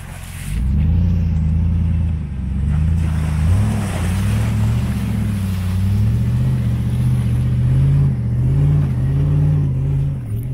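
Chevrolet 2500HD pickup truck's engine pulling the truck along a muddy dirt trail, its pitch rising and falling repeatedly as the throttle is worked.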